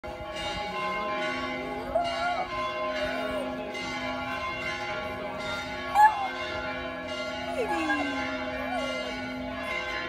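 Church bells ringing steadily while a small spitz-type dog howls along in short rising and falling yowls, the loudest about six seconds in, with a long falling howl near eight seconds.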